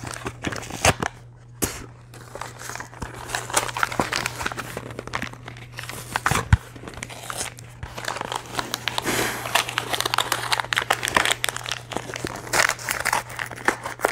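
Thin cardboard ear candle box being torn open and crumpled by hand, an irregular run of crackling and ripping.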